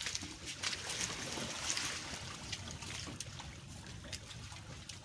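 Wet fishing net being pulled aboard and heaped on a boat's deck: water trickling and dripping off the mesh, with many small clicks and rustles, busiest about a second in, over a low steady rumble.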